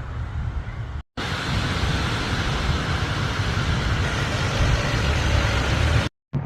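Steady outdoor road-traffic noise with a low rumble, cut off abruptly to silence twice, about a second in and near the end, where the footage is edited.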